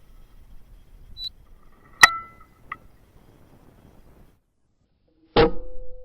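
A .22LR rifle firing subsonic ammunition: one sharp shot about two seconds in with a brief ring, followed by a fainter click. A second loud, sudden sound comes near the end, trailing a steady low tone.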